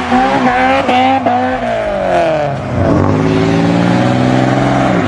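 Car engine revving hard during a burnout: a run of quick short revs, then the pitch falls away, climbs again and is held high for the last two seconds.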